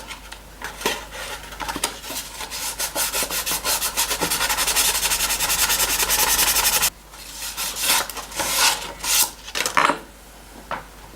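Rapid back-and-forth hand abrading on a pocket knife, rubbing at several strokes a second. It stops abruptly about seven seconds in, followed by a few scattered strokes.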